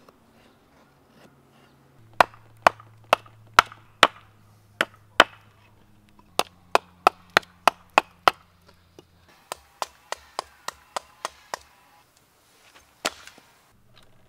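A large knife chopping into a split stick of wood standing on a chopping stump. Three runs of sharp strikes: the first about two a second, the later two faster, the last one softer. One more strike comes near the end.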